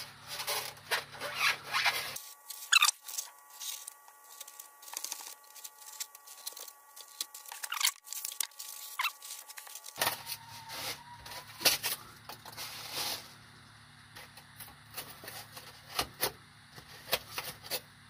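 A knife cutting and scraping into styrofoam insulation in short, irregular scratchy strokes.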